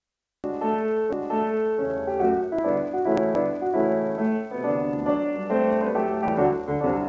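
Instrumental introduction of an old 78 rpm record, starting abruptly out of silence about half a second in, with several sharp surface clicks from the disc scattered through the music.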